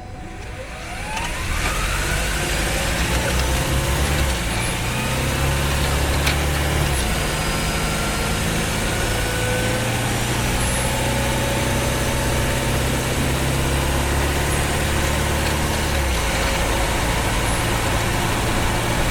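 Honda Freed Hybrid's drivetrain heard from inside the engine bay as the car pulls away: a whine rises in pitch over the first two seconds as the 1.5-litre four-cylinder engine comes in, then the engine runs steadily under load, its low note shifting twice.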